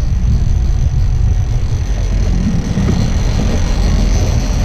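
Steady low rumble of a motorboat under way, with wind buffeting the microphone.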